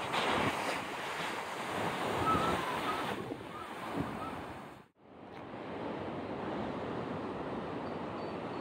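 Surf breaking against shoreline rocks, with wind buffeting the microphone. The sound cuts out for a moment about halfway through, then goes on as a steadier rush.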